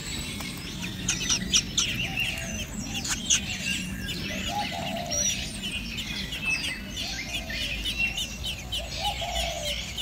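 Birds chirping and twittering: a dense run of short, high chirps and trills, with a few lower calls now and then.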